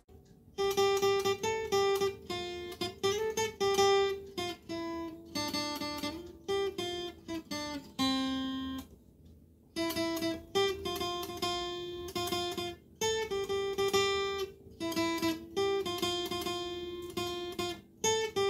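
Acoustic guitar picked as a melody, one note at a time, each note ringing and fading. The phrases come with short gaps between them and a longer pause about nine seconds in.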